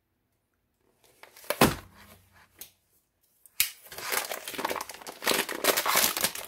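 A clear plastic bag crinkling as it is handled, with a couple of soft knocks first and continuous crinkling from about halfway through.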